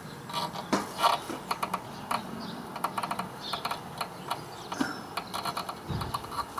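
Honda CB400N front brake caliper being reassembled by hand: a run of light, irregular metallic clicks and taps as the caliper parts and pads are handled and fitted together.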